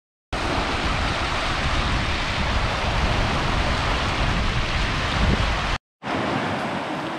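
Shallow, fast-flowing stream rushing over stones in rapids, a steady noisy rush of water with a heavy low rumble. It starts abruptly a moment in, cuts off just under six seconds in, and after a brief silence a second stretch of rushing river water follows.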